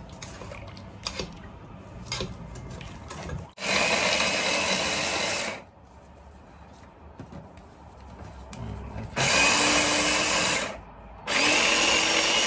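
Small electric mini chopper pulsed three times, each pulse a one-to-two-second run of its motor and blades chopping garlic, the first about four seconds in. Before the first pulse come quieter clinks and handling sounds.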